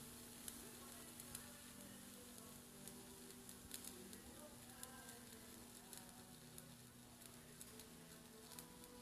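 Faint crackle and sizzle of a stick-welding (SMAW) arc on pipe, with many scattered sharp pops, over a steady low hum.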